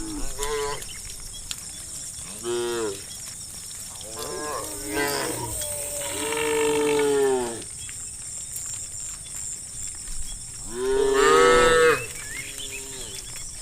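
Cattle mooing, about half a dozen calls in turn. The longest and loudest come about halfway through and near the end.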